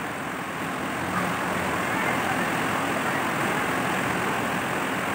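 Heavy rain pouring in a steady rush, getting louder about a second in.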